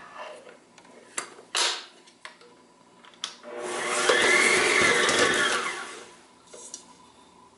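Kenwood Chef KMC011 stand mixer's motor running for about three seconds with the whisk beating cream cheese, its whine rising in pitch as it spins up and falling as it winds down. Before it, a couple of sharp clicks as the mixer head is lowered and locked.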